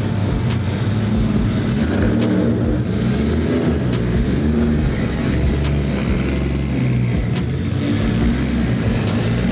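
Nissan S14 drift car's engine running at low revs as the car is driven slowly across a concrete floor, a steady low rumble.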